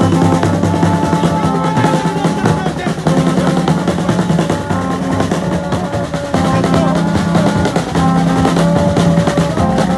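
Street band of drums and long plastic horns playing: a busy beat on bass drum and snare-type drum with rolls, under held horn notes blown in repeated blasts.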